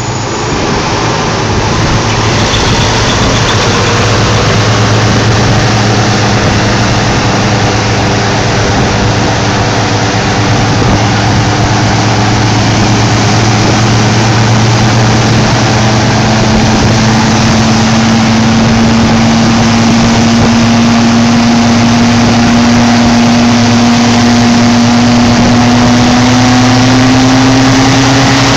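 A road vehicle's engine running steadily as it drives through floodwater, its pitch slowly rising over the whole stretch, over a continuous rush of water spray from the tyres.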